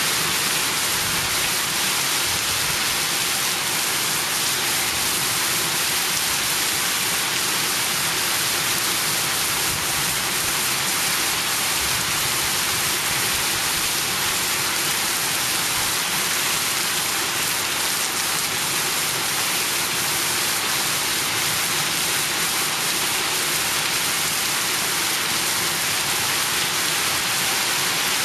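Monsoon rain pouring down steadily, a dense, unbroken hiss with no let-up.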